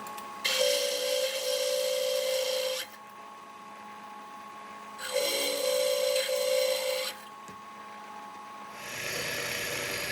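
Half-inch twist drill cutting through a 3/16-inch steel tube wall, twice, each cut about two seconds long with a steady high squeal and hiss over the hum of the running machine. Near the end a broader hiss starts.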